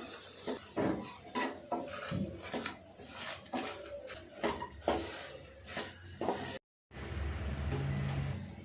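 A spoon or ladle scraping and knocking around a pan in irregular strokes, stirring wheat flour as it roasts in ghee over low heat. The sound cuts out briefly about seven seconds in, and a low hum follows.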